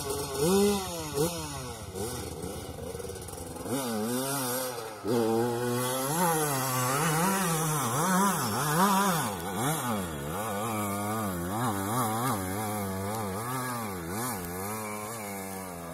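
Dirt bike engine revving hard up and down over and over, about once a second, as it climbs a dirt hill track. It gets louder about four seconds in.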